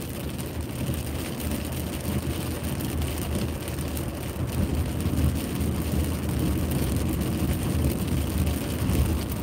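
A car driving on a wet road, heard from inside the cabin: steady road and tyre noise with rain on the car.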